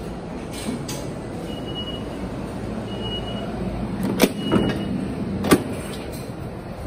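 Subway station ambience: a steady low rumble, three short high beeps a second or so apart, and sharp metallic clanks a little after four seconds and again near five and a half seconds, the last the loudest.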